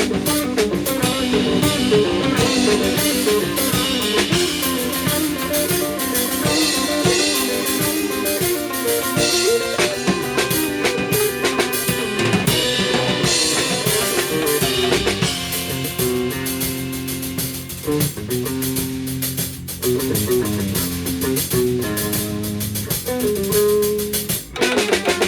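A band playing a fast rock fusion piece: quick plucked Tsugaru shamisen runs over a drum kit.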